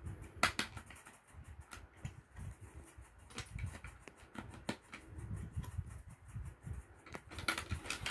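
Banbao plastic building bricks clicking as grey plates are pressed onto a baseplate's studs and handled: scattered single clicks, with a quick run of them near the end, over soft handling noise.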